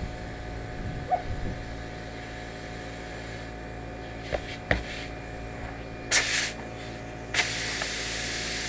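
Compressed air hissing at a truck tire's valve stem during inflation: a short burst about six seconds in, then a steady hiss from about seven and a half seconds. Two sharp knocks come a little before, near the middle.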